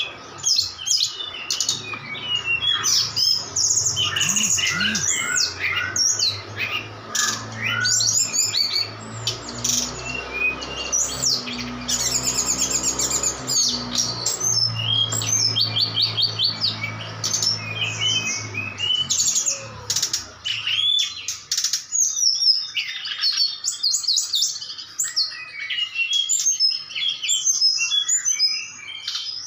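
Caged brown-chested jungle flycatcher and a rival flycatcher singing back and forth in quick, high chirping and whistled phrases. A low hum runs under the song through the middle.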